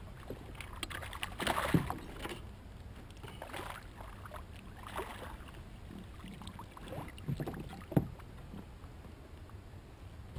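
Water splashing and sloshing as a hooked fish thrashes at the surface beside a kayak and is scooped into a landing net, with two sharp knocks, about two seconds and eight seconds in.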